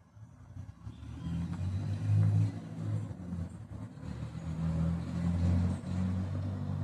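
A motor vehicle's engine running close by: a low, steady hum that builds about a second in and then holds.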